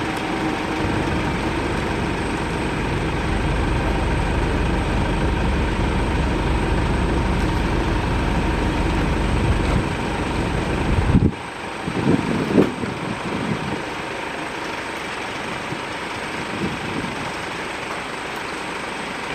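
Steady noise of jet airliner engines running at the airport, with a deep rumble that cuts off abruptly about eleven seconds in, leaving a quieter steady engine noise.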